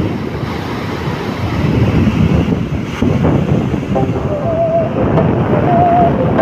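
Floodwater pouring down a dam spillway: a loud, steady rush of water, with wind buffeting the microphone. Faint wavering tones join in from about four seconds in.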